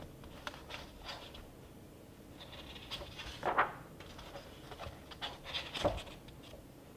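Pages of a hardcover book turned by hand: several soft paper swishes and rustles, the loudest about three and a half seconds in, and a sharper, fuller stroke just before six seconds.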